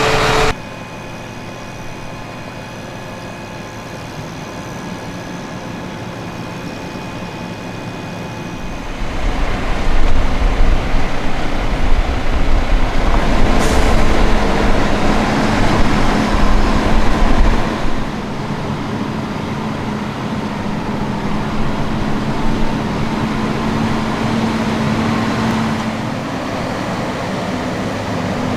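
Fendt 936 Vario tractor running steadily while pulling a loaded tanker, growing much louder with a deep rumble about a third of the way in and easing off again after about 18 seconds, as if passing close by.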